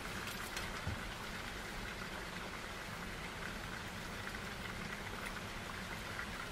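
Steady rush of a mountain river flowing, an even hiss of running water.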